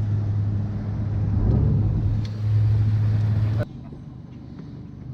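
Small boat's outboard motor running steadily at idle, cutting off abruptly about three and a half seconds in, leaving quieter background sound.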